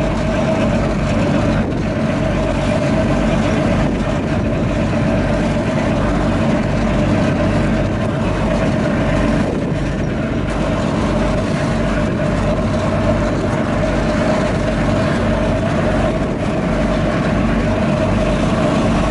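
Boat engine running steadily under way, a constant low drone with a steady hum through it.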